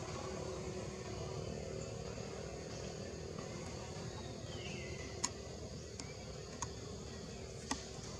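Steady low mechanical rumble. About four and a half seconds in comes a short falling chirp, followed by a few sharp clicks over the last three seconds.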